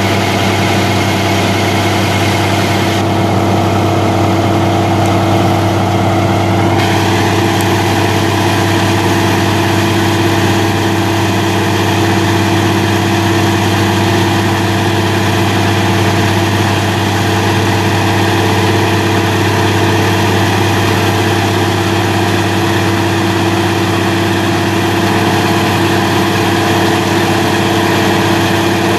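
1972 Kenworth dump truck's diesel engine running steadily at idle while the PTO-driven hoist raises the steel dump bed.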